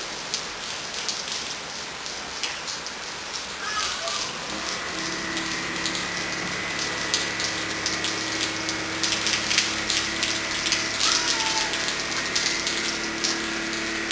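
Rain pattering on wet pavement, with the Mercedes Sprinter tractor unit's engine starting a steady low drone about five seconds in as it slowly moves the semitrailer.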